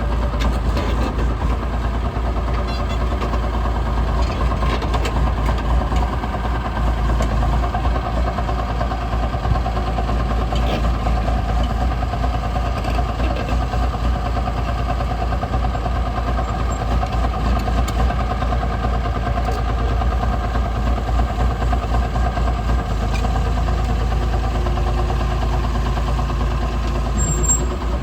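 Liebherr 932 excavator's diesel engine running steadily at idle.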